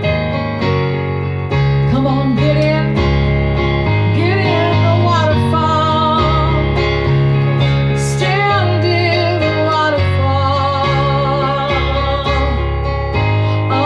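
Worship music: held keyboard chords changing every second or two, with a wavering melody line over them.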